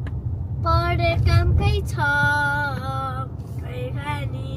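A high voice singing a melody with held, wavering notes, over the steady low rumble of a car moving on the road, heard inside the cabin.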